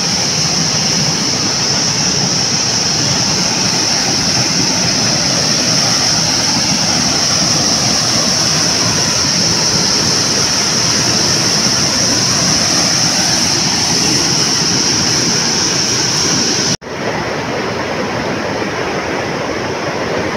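Stream water rushing steadily, with a steady high-pitched whine over it. The sound drops out for an instant near the end.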